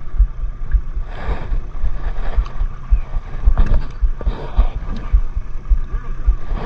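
Boat engine idling with slow, regular low thumps, about two to three a second, under several bursts of rushing noise.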